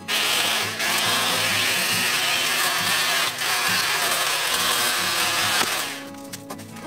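Battery-powered pole chainsaw (VOLTAGA ET1612, 20 V electric) running as its chain cuts through regrown bamboo stalks, with two brief dips, stopping shortly before the end. Background music plays underneath.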